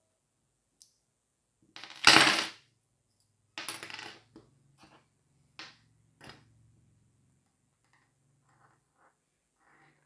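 Metal keys and small parts of an aluminium key organizer clinking as they are taken apart and set down on a table. The loudest clatter comes about two seconds in and another near four seconds, followed by a few lighter clicks.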